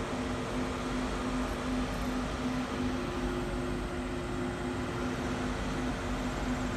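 Steady mechanical hum with a few held low tones, one of them pulsing faintly, over an even background rush.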